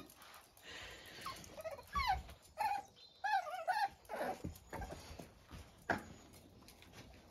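Young puppies whimpering in short, wavering high-pitched whines, with a few soft thumps as they scramble and tussle on the step.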